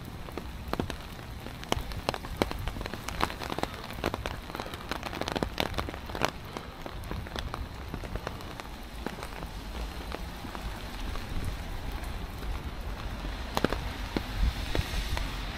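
Steady rain falling on wet paving, with many sharp drops ticking on an umbrella overhead.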